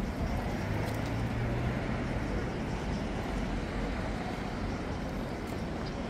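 Street ambience with a steady rumble of traffic and a low engine hum for about the first two seconds, then fading.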